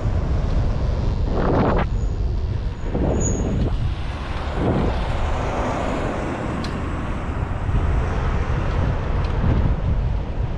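Wind buffeting the microphone of a bike-mounted GoPro 8, with tyre and road noise as the bike rolls along the street; a steady low rumble with a few brief louder swells of noise in the first five seconds.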